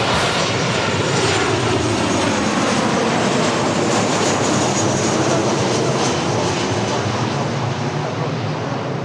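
Airliner passing close by with its engines running loud; the engine whine falls in pitch as it goes past.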